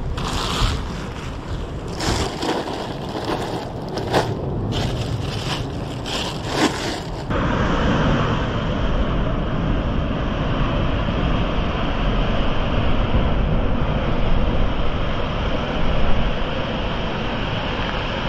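Sea surf washing on the shore, with wind buffeting the microphone in irregular gusts. About seven seconds in it cuts to a steadier, duller rush of surf and wind.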